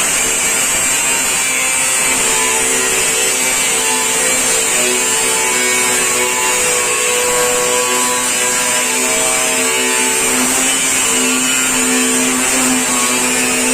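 Electric power tool cutting steel, most likely an angle grinder. It runs steadily with a high hiss, and its motor tone shifts in pitch now and then as the cut loads it.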